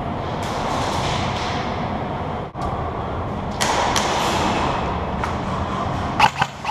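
Steady rustling and scuffing of an airsoft player's gear against a body-worn camera as he moves, with a few sharp knocks, several of them near the end.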